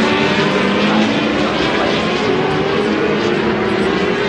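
Superbike engines running at speed around the circuit: a steady blend of several engine notes that shift slowly in pitch.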